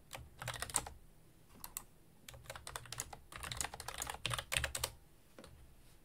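Computer keyboard being typed on: quick runs of key clicks with short pauses between them, then one last single key press near the end.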